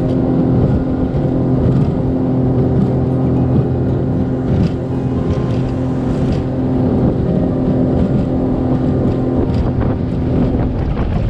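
A boat's outboard motor running steadily under way, with wind noise on the microphone.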